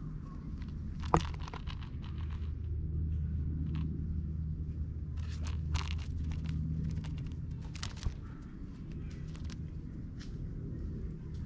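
A cat biting and clawing at a fluffy cat-teaser toy: scattered soft crunching and scraping clicks, with a sharp click about a second in and more around five to six and eight seconds in. A low steady hum runs underneath.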